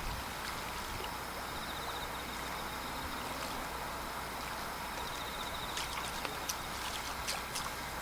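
Lakeshore ambience: a steady wash of water, with a high pulsing trill that comes and goes. A few sharp clicks come in quick succession in the second half.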